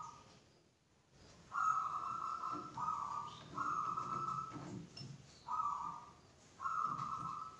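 Lathe chuck key being turned in a four-jaw chuck, giving a series of drawn-out squeals about a second long, each with a grinding undertone, as the jaws are wound in on a cylinder block.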